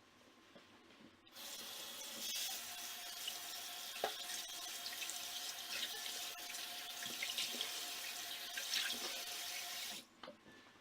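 Water tap running into a sink. It is turned on abruptly about a second in and shut off near the end, with a few small clicks in the steady rush of water.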